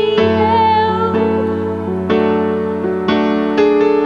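Slow worship ballad: electric piano chords struck about once a second, with a long held female sung note that wavers near the start.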